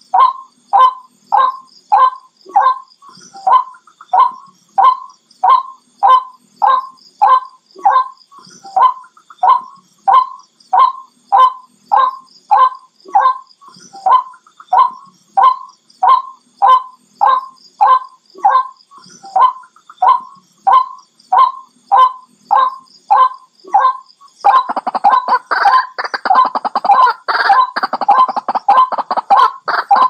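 White-breasted waterhen calls repeated in a steady series, about two short notes a second. About 24 seconds in they turn into a faster, denser run of calls. This is a recorded waterhen call of the kind played to lure waterhens.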